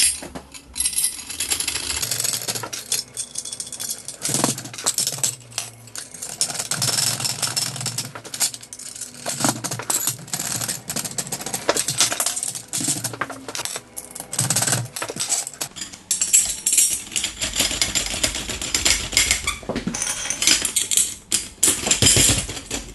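Shoe-rack poles and screws clinking and knocking as they are handled and fitted to the legs, a rapid, irregular run of light metallic clicks.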